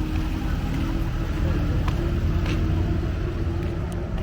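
Race car engines running on the circuit, heard as a steady low drone with a held engine note.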